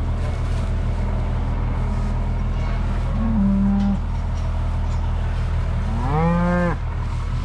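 Cattle bawling during sorting: a short low moo a little past three seconds in, then a louder bawl near the end that rises in pitch, over a steady low engine hum.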